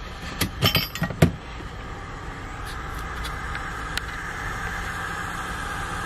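Hot-air rework gun blowing steadily, an even hiss, after a few sharp clicks in the first second or so.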